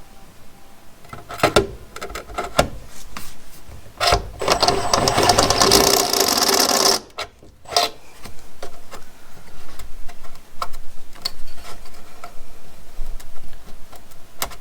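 Power drill with a step drill bit spinning for about three seconds, starting about four seconds in, cleaning up a drilled hole from the back side. Scattered clicks and knocks of handling come before and after.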